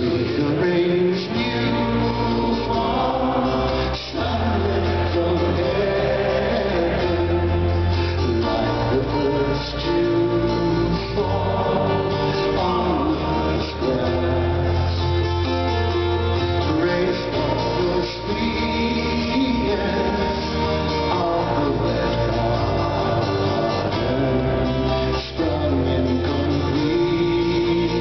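Live acoustic band music: acoustic guitars strummed over held low bass notes and keyboard, with a man singing.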